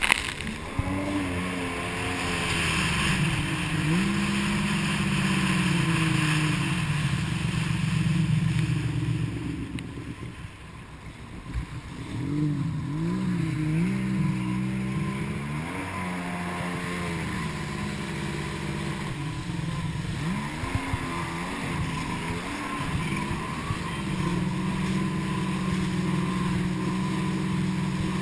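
Jet ski engine running at speed, its pitch rising and falling with the throttle, over the hiss of rushing water and spray. The engine eases off about ten seconds in, then revs back up and holds a steady high note near the end.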